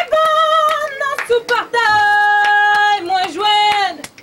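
A woman singing a Haitian folk song solo, the first notes wavering with vibrato, then a long steady held note, the voice stopping near the end. Short sharp clicks sound behind the voice throughout.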